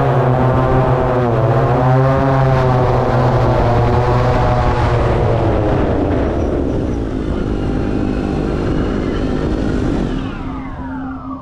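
Multirotor delivery drone's propellers and motors running loudly as it comes in to land, the pitch wavering with throttle changes. Once it is down, the rotors spin down, their tones gliding lower and fading about ten seconds in.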